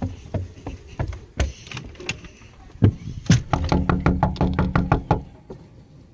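Knocking on a door: scattered single knocks, then a fast run of about six knocks a second from about three and a half seconds in until just after five seconds, with a low ringing hum under the run.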